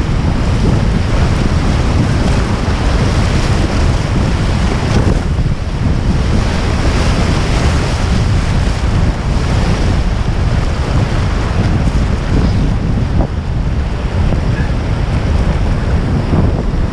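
Rushing river water with heavy wind buffeting on the microphone, a steady unbroken rush.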